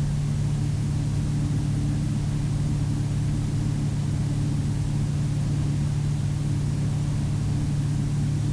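Steady drone of a Piper Navajo's twin piston engines and propellers in level cruise, heard from inside the cabin: a constant low hum over even hiss.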